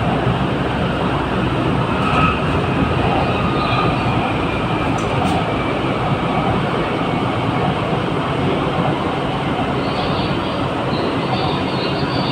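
Steady running noise inside a driverless Hyundai Rotem MRT Putrajaya Line train travelling at speed: an even rumble of wheels on rail, with a faint high whine near the end.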